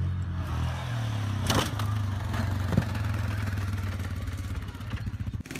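An off-road vehicle's engine running steadily as a low drone, cut by a sharp knock about a second and a half in and a louder impact near three seconds in. The sound cuts off abruptly near the end.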